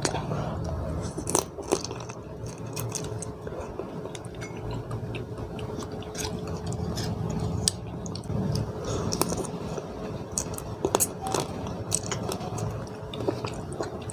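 Close-up chewing and biting with sharp, irregular cracks: a person crunching through the shell of a blue swimming crab while eating seafood papaya salad. A faint steady hum runs underneath.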